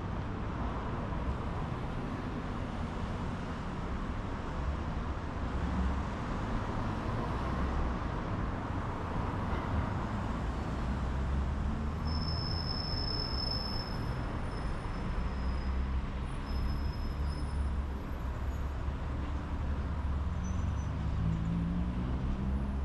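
City street traffic: cars and buses passing with a steady rumble. There is a brief high squeal about halfway through, and a vehicle's engine rises in pitch as it pulls away near the end.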